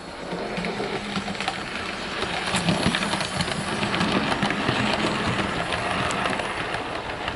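Hornby OO gauge H Class tank engine model running past with three coaches: its electric motor hums steadily while the wheels click and rattle on the track. The sound builds as the train approaches, is loudest as it passes, and eases off near the end.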